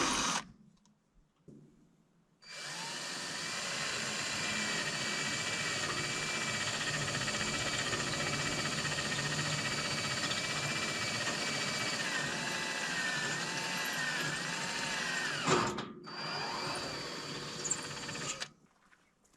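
Cordless drill running steadily for about thirteen seconds, working into steel roofing panels, its whine dipping and wavering in pitch near the end as it takes load. It stops briefly, then runs again for a couple of seconds.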